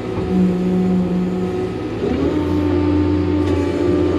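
OMC almond shaker's 6.7-litre Cummins diesel engine running, rising in pitch about two seconds in and holding at the higher speed: the engine revving up for the shake cycle.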